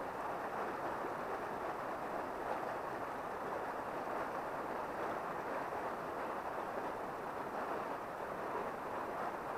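Steady rush of a shallow, rocky river flowing over riffles: an even hiss with no separate events.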